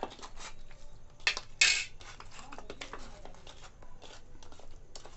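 Hands squishing and rubbing garlic-ginger paste into raw chicken leg pieces in a steel bowl: a run of small wet clicks and squelches, with a louder short scrape about one and a half seconds in.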